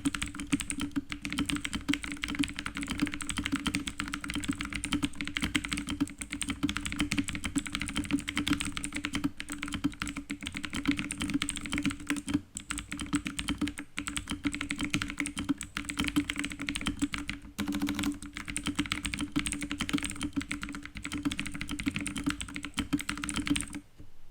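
Fast continuous typing on a K550 TKL mechanical keyboard with clicky blue switches, lubed with Krytox 205g0: a dense clatter of key clicks and keycap strikes. The typing stops abruptly near the end.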